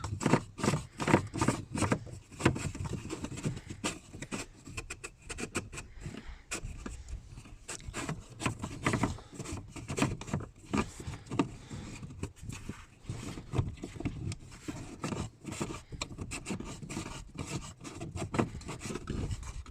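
Hands and tools working at a newly fitted in-tank fuel pump in a cramped space: irregular clicks, light knocks, rubbing and scraping.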